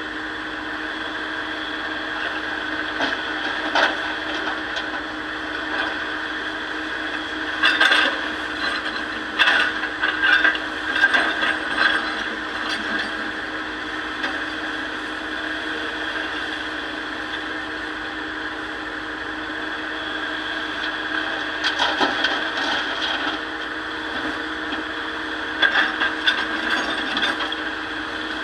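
Excavator engine running steadily, with several bursts of stones knocking and clattering as they are loaded into a dump truck.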